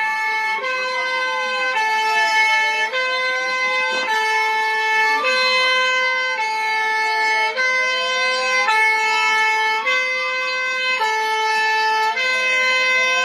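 Electronic emergency-alert alarm: two pitched tones alternate about once a second, over a siren tone that slowly rises and falls, peaking about every five seconds.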